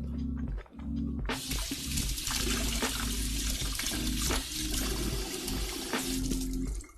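A steady rushing of water that starts suddenly about a second in and cuts off just before the end, over background music.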